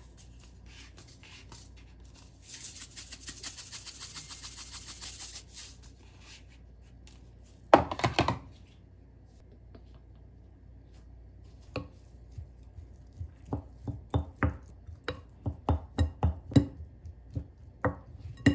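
A wooden spoon mixing cooked rice in a glass bowl, knocking against the bowl in quick taps about three times a second over the last several seconds. Before that come a few seconds of fine rapid rattling and a single loud knock about eight seconds in.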